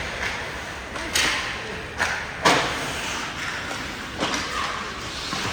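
Hockey sticks and pucks cracking on the ice and against the boards, four or five sharp echoing hits about a second apart, the loudest about two and a half seconds in, over the steady hum of the rink.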